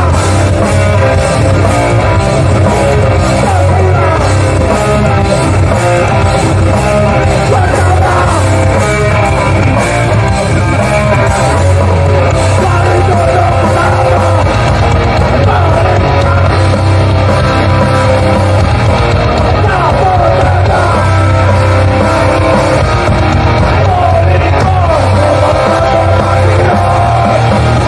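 Live hardcore band playing loud and without a break: shouted vocals over distorted electric guitars, bass and drums.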